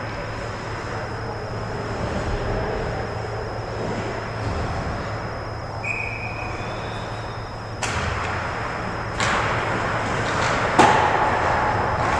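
Ice hockey rink ambience: a steady hum under the noise of skates and sticks on the ice, then three sharp knocks about a second apart, the kind of knock a puck makes against the boards or a stick, with the scraping growing louder after them.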